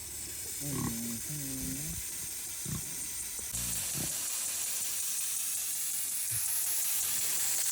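Water mister or sprinkler spraying with a steady hiss, which gets louder about three and a half seconds in. A few brief low sounds come in the first two seconds.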